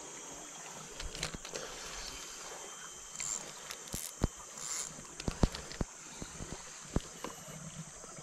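Knocks and clicks from handling a spinning rod and setting it in a rod holder on the bank, with a few rustles of bankside plants; the sharpest knocks come about four and five and a half seconds in. A steady high insect drone runs underneath.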